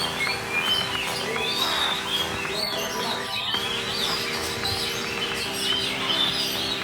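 Songbirds at a singing contest, among them an Oriental magpie-robin (kacer), singing together: a dense, overlapping stream of short high chirps and whistles. Steady low tones hum underneath.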